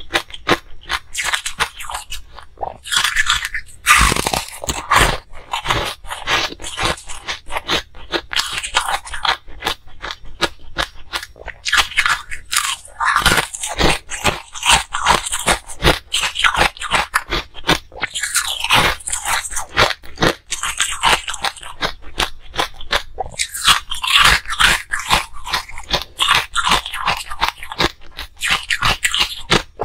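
Close-miked crunching and chewing of ice in the mouth: a dense, continuous run of sharp cracks and crackles as the ice is bitten and ground between the teeth.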